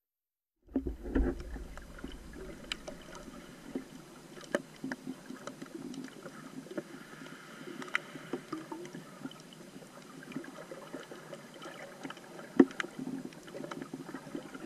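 Muffled water noise picked up by a camera held underwater while snorkeling. After a moment of silence at the start, scattered clicks and knocks sound through it, the loudest a little after the middle and again near the end.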